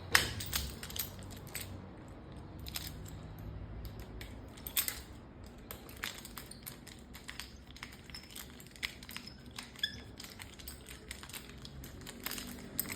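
Irregular clicks, taps and knocks of hands and tools working on a bicycle while its brake is fitted, the sharpest just after the start and a little under five seconds in.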